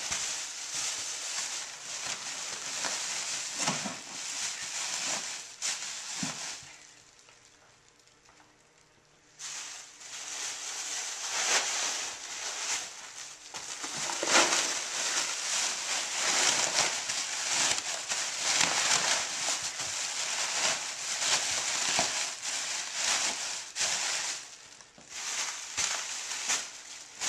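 Plastic bags of packing material crinkling and rustling loudly as they are handled and stuffed into a wooden shipping crate, with a quiet pause of about two seconds some seven seconds in.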